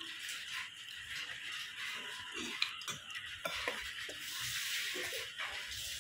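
A cat eating fish bones from inside a cut-open plastic bottle: irregular crunching and clicking, with the thin plastic crackling and knocking as it moves, thickest a little past the middle.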